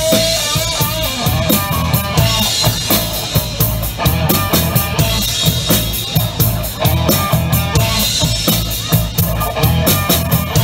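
Live rock band playing amplified through PA speakers: a drum kit keeps a steady beat under electric guitar, with no singing.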